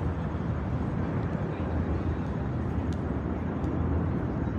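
Steady low rumble of outdoor city ambience, with no single sound standing out.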